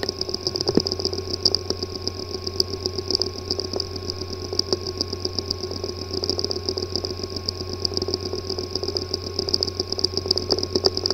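Hard drive with a physically damaged disk assembly running: a steady buzz with a fast fluttering pulse, many fine ticks and a few sharper clicks, the clicking and buzzing of a failing drive.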